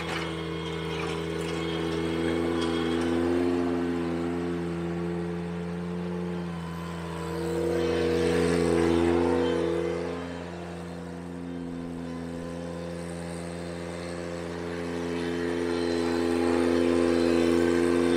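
Ventrac 4520Z compact tractor's engine running steadily under load while it drives a power rake through a gravel driveway. The engine sound swells and eases about three times.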